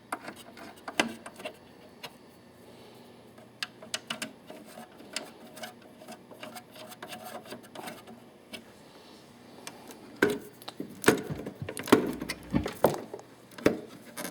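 Handling noise from the Echoplex tape delay unit being put back together: scattered clicks, knocks and rubbing as its lid is fitted back on. The knocks grow louder and come thicker in the last few seconds.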